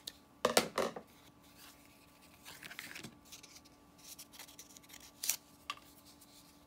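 Scissors snipping through paper, trimming off the excess, loudest in a few quick strokes about half a second in. Softer scraping follows, and a single sharp click a little after five seconds.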